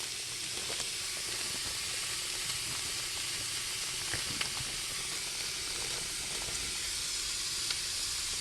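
Burger patties sizzling in a skillet: a steady frying hiss with a few small ticks now and then.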